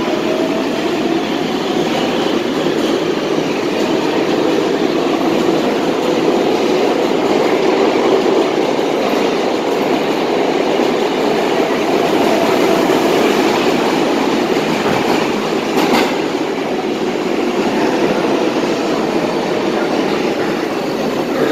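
An R188 subway train running past the underground platform: a loud, steady clatter and rumble of wheels on rail, with a faint wavering whine under it. A single sharp click comes about 16 seconds in.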